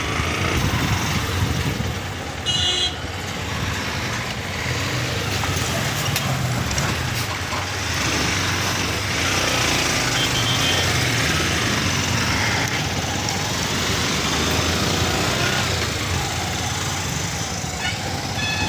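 Motorcycle riding along a mountain road: steady engine and road-and-wind noise, with lorries passing close by. A short, high-pitched horn toot sounds about two and a half seconds in.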